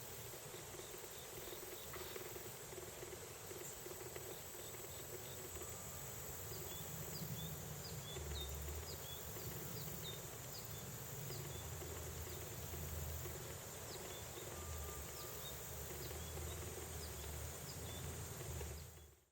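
Late-summer outdoor insect chorus: a steady high-pitched trill, with a string of short high chirps repeating through the middle and a low rumble underneath.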